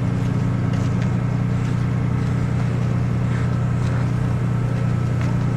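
Heavy diesel engine of a concrete truck running at a steady speed.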